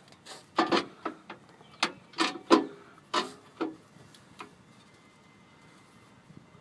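A quick run of about ten short clicks and clinks of hand work under the truck, bunched into the first four seconds, then it goes quiet.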